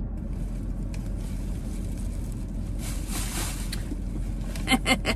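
Steady low rumble, with a woman's breathy laugh-exhale about three seconds in and a few short bursts of laughter near the end.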